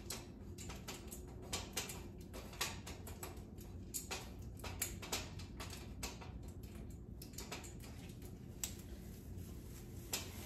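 Scattered light clicks and taps of artificial Christmas tree parts being handled and fitted together, irregular and unhurried, over a low steady hum.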